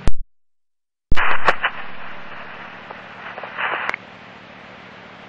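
Police radio scanner between voice transmissions: a squelch click, about a second of dead air, then an open channel of static hiss with faint garbled bits and key-up clicks.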